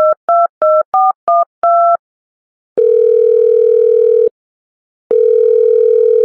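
Telephone sound effect: six quick touch-tone dialling beeps in the first two seconds, then two long ringback tones of about a second and a half each, the call ringing at the other end.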